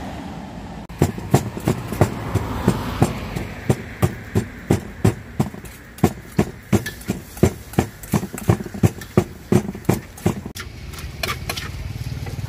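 Som tam being pounded with a wooden pestle in a clay mortar: an even run of sharp knocks, about two to three a second. The pounding stops about ten seconds in, giving way to lighter clicks of a spoon in the mortar.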